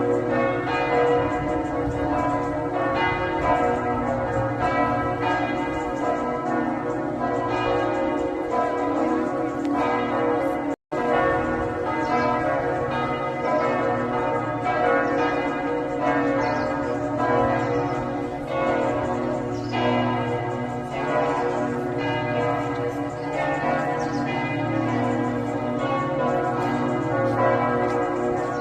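Church bells of the Rosary Basilica at Lourdes ringing continuously, strike after strike overlapping with long ringing tones. The sound drops out for an instant about eleven seconds in.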